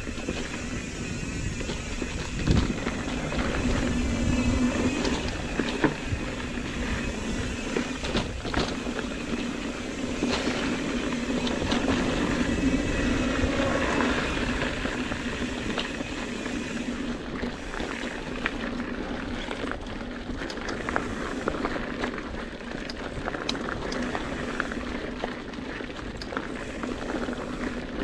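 Mountain bike rolling fast on a dirt singletrack: the tyres run with a steady low hum, with frequent sharp clicks and rattles from the bike over the rough trail and a harder knock about two and a half seconds in.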